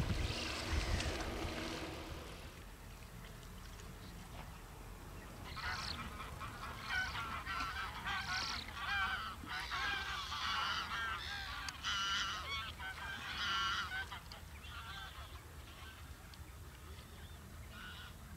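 A flock of geese honking, many overlapping calls about five seconds in for around eight seconds, then fainter calls. Wind rumbles on the microphone for the first two seconds.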